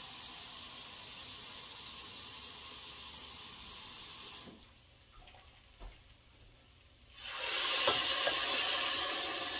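Seasoned rice sizzling steadily in a hot enamelled pot, then after a quieter pause, about seven seconds in, water poured from a bowl into the pot to cook the rice rushes in loudly and hisses against the hot pot.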